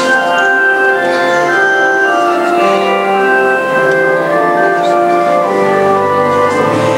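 Church organ playing held chords that change about every second.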